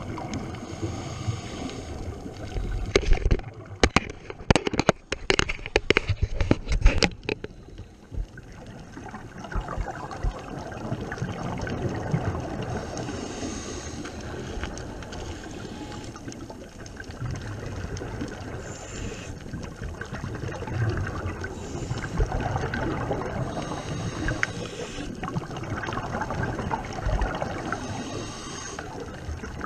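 Muffled underwater noise picked up by a camera in a waterproof housing, with a run of sharp clicks and knocks from about three to seven seconds in.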